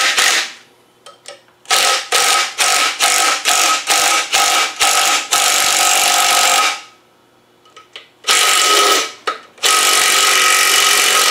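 Cordless impact wrench hammering in a string of short trigger bursts, then in longer runs, tightening bolts with spreader washers against the flywheel to jar it loose from a rusted crankshaft.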